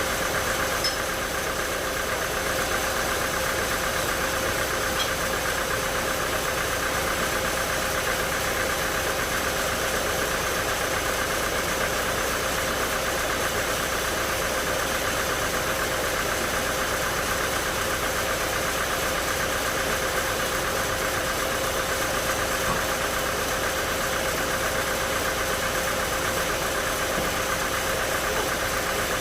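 Sawmill saw and machinery running steadily, a constant mechanical hum with a steady high whine and no change in pitch or level.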